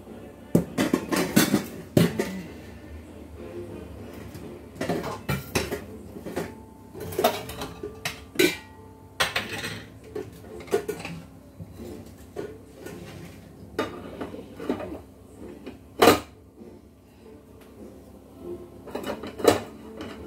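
Metal cooking pots and utensils clinking and clattering on a gas stovetop: a series of irregular knocks, some followed by a brief metallic ring.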